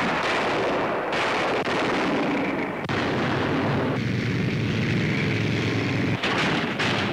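Tanks firing and moving: a continuous loud mix of engine noise and gun blasts, changing character abruptly several times.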